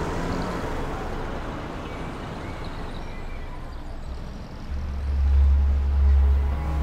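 Cars driving through a street parking lot, with engine and tyre noise. A deep, steady low rumble comes in about two-thirds of the way through and is the loudest part.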